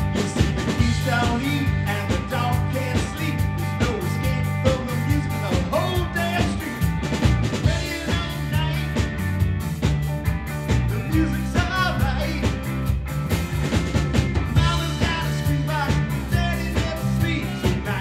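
Live rock band playing: electric guitars, bass guitar and drum kit over a steady beat, with a lead melody line bending in pitch.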